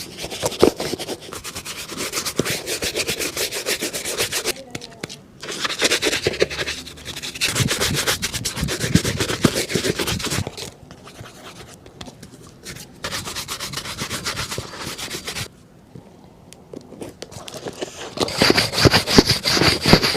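Fast rubbing strokes on a shoe during cleaning and polishing, coming in runs of a few seconds with short pauses between them. Near the end a thin, steady high tone sounds over the strokes.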